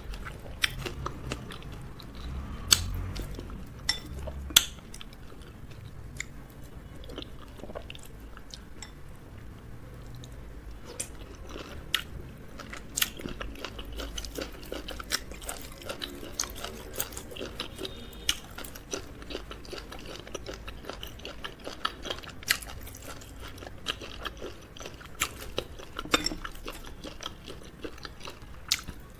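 Close-miked chewing and biting of fufu and okra soup with crab, wet mouth sounds broken by many sharp clicks and crunches.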